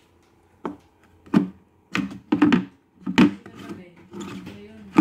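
Metal grinding blade and plastic bucket of a kitchen food-waste composter being handled by hand: a string of irregular knocks and clatters of metal against plastic, with some rubbing as the blade is wiped clean of dried scraps.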